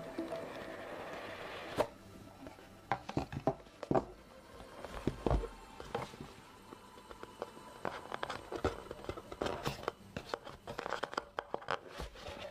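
Cardboard smartphone retail box being opened and handled: a brief sliding scrape as the lid comes off, then scattered clicks and taps and a soft thump about five seconds in as the packaging inside is handled.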